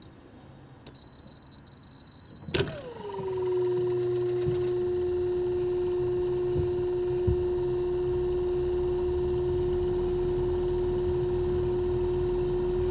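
EG4 mini-split outdoor unit starting up in heat mode: a faint high electronic whine, then a sharp click about two and a half seconds in, after which a tone slides down and holds steady over a low running hum. This start-up includes the little swish of the reversing valve switching into heating, the sign that the valve has shifted.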